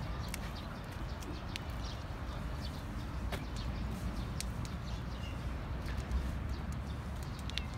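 Outdoor park ambience while walking: a steady low rumble with scattered light clicks of footsteps and a few short bird chirps.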